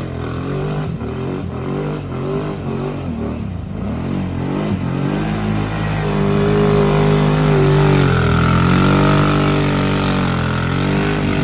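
ATV engine revving up and down, then held at high revs and louder from about halfway through before easing off near the end.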